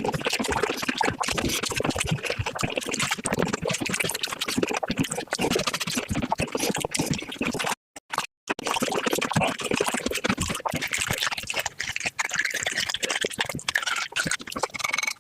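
Mukbang eating sounds sped up fivefold: a rapid, dense run of wet chewing, smacking and slurping clicks. A brief gap of total silence a little past halfway marks a cut between clips.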